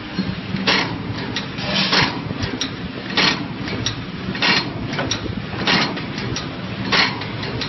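Skywin 400 mm PLC tray-type cookie machine running: a steady motor hum under a sharp mechanical clack that repeats about every one and a quarter seconds, with lighter clicks between the strokes.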